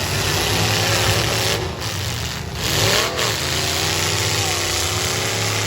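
Unmuffled stock V8 engines of full-size demolition derby cars running loud and revving, with one engine rising and falling in pitch about three seconds in.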